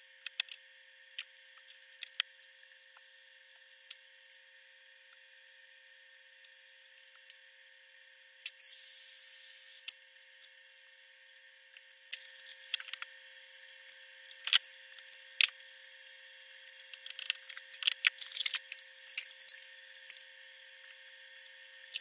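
Sped-up handling sounds of vinyl graphics being fitted to a plastic RC truck body: scattered sharp clicks and taps, a brief hiss about eight and a half seconds in, and a denser run of clicking in the second half, over a faint steady tone.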